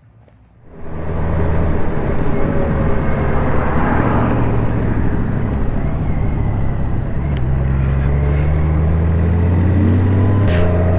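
Honda Gold Wing motorcycle riding off, its engine running loud and steady from about a second in, with the engine note rising about seven seconds in.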